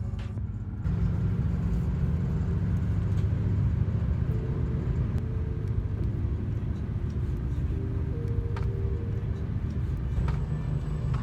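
Steady low rumble of a road vehicle in motion, growing louder about a second in.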